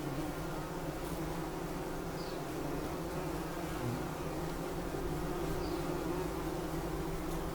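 Bumblebee buzzing in a steady, continuous drone.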